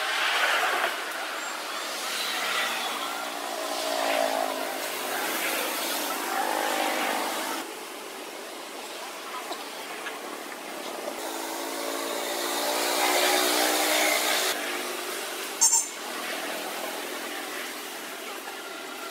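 Motor vehicle engines passing, their hum rising and fading in two long swells that cut off abruptly, with one sharp click about three-quarters of the way through.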